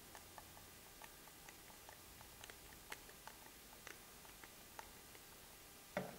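Faint, irregular small clicks and ticks of a hand screwdriver turning a small screw into the arm of a spinning-wheel flyer, with one louder knock near the end.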